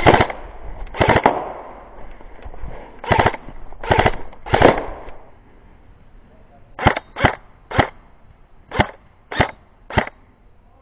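Airsoft guns firing single shots: about five louder shots with a short ring over the first five seconds, then six sharper, quieter shots about half a second to a second apart.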